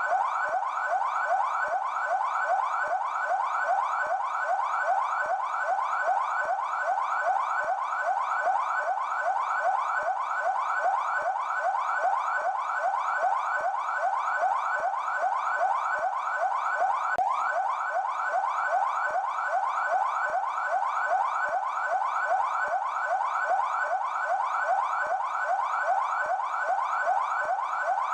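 São Paulo Military Police (PMESP) electronic police siren on its yelp tone: a fast rising wail repeating about three to four times a second, steady and unbroken.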